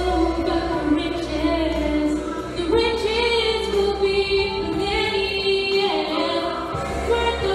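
A woman singing into a microphone, holding long notes that waver in pitch.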